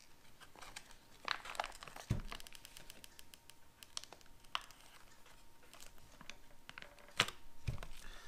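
Aluminium foil wrapping of a food-bar brick crinkling and crackling as it is peeled open and handled, with scattered sharp clicks, a low knock about two seconds in and a louder click about seven seconds in.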